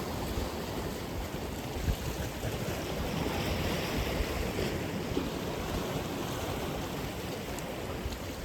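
Atlantic Ocean surf: waves breaking and washing in a steady rush, with a brighter wash swelling about three seconds in.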